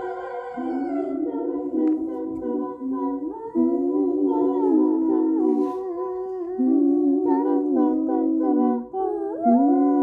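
Recording of a woman singing a cappella without words: long hummed notes that step up and down in pitch, in phrases with short breaks between them.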